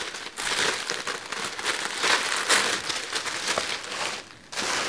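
Tissue paper rustling and crinkling as it is pulled open and handled, with a brief lull about four seconds in.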